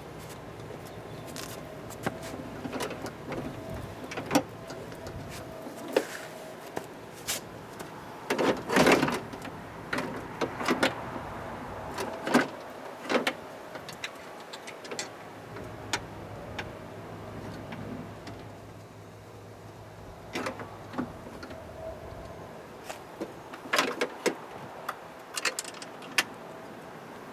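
Irregular metallic clicks, taps and knocks of hand tools working on the screws of a car door's window regulator, over a steady low hum.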